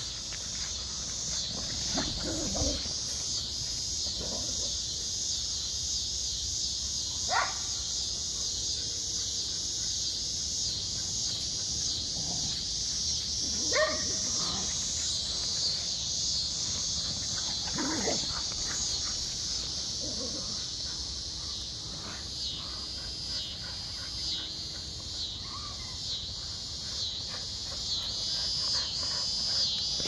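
A steady high-pitched chorus of evening insects with a regular pulsing rhythm. Over it, border collies bark a few times in short single calls while playing.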